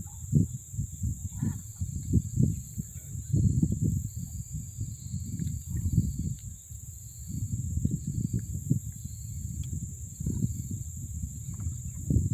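Gusty wind rumble on the microphone over a steady high insect drone from the trees, with a few faint short calls.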